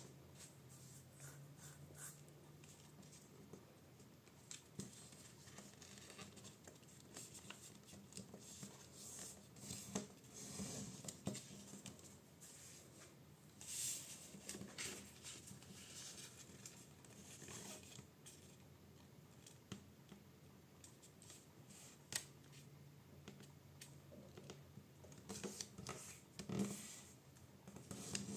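A4 printer paper rustling and crackling faintly as it is folded and creased by hand, fingers sliding along the folds, with louder crinkles about ten, fourteen and twenty-seven seconds in.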